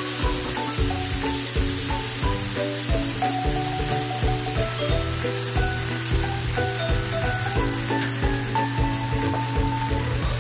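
Vegetables and sweet-and-sour sauce sizzling as they simmer in a pan. Background music with held melody notes and a steady beat plays over it.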